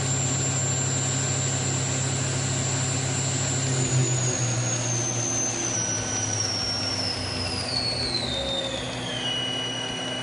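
Akira Seiki Performa V4 CNC vertical machining center's 8,000 RPM CAT40 spindle running at top speed, a steady high whine over a motor hum. From about four seconds in the spindle slows: the whine falls steadily in pitch and levels off at a lower tone near the end. The dealer calls the spindle very healthy.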